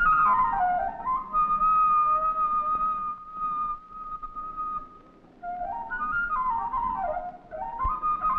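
Solo flute playing a slow melody. A phrase slides down, then a long high note is held for several seconds; after a short pause comes a run of notes rising and falling.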